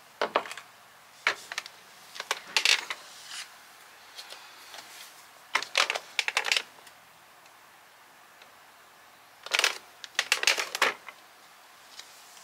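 Several short bursts of light clicking and tapping, five clusters with pauses between them, as a smartphone is set down on a wooden surface and a bare foot steps onto a glass smart bathroom scale.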